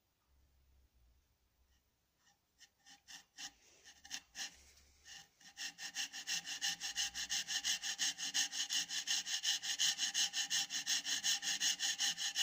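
A thin wire drawn back and forth by hand in a groove on a turned wooden piece, rasping with each stroke: a burning wire heating the wood by friction to mark a dark line. A few uneven strokes come first, then a fast steady rhythm of about five strokes a second that grows louder.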